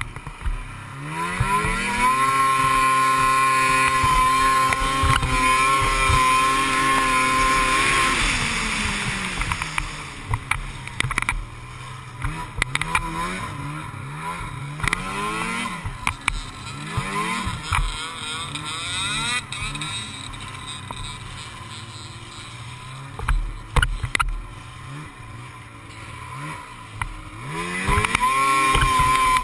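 Snowmobile engine under throttle while riding: it climbs about a second in and holds at high revs for about six seconds, then eases off and rises and falls in short swells before climbing again near the end.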